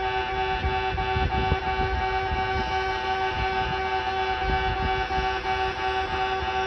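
Japanese railway level-crossing alarm bell ringing steadily, its electronic clang repeating in a fast even rhythm.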